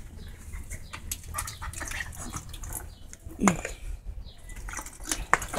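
Small dog lapping and splashing at water in a bowl: irregular wet clicks and splashes, with one brief falling tone about three and a half seconds in.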